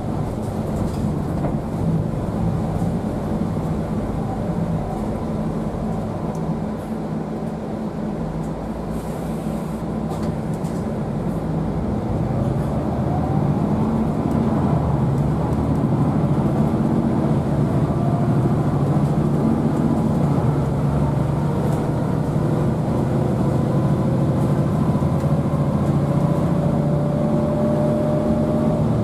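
MAN D2066 320 hp diesel engine of a MAN ND323F bus, heard from inside the cabin, running while the bus drives. It eases off for a few seconds, then pulls louder from about twelve seconds in as the bus accelerates, with a thin whine rising slowly in pitch near the end.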